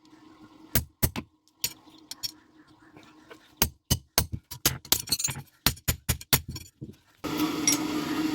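Hammer striking iron on an anvil, ringing blows in runs of about three a second with a pause between the first two and the next run. A steady low hum runs underneath, and a louder steady noise starts near the end.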